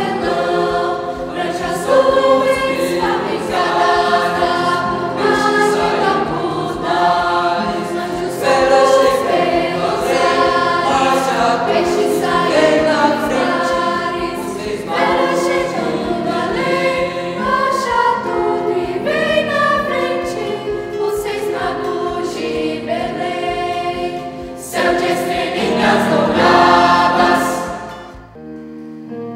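Youth choir of mixed boys' and girls' voices singing together; the singing stops suddenly about a second before the end.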